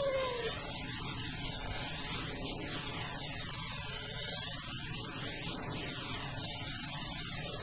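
Steady hum and hiss, with a brief falling tone in the first half-second.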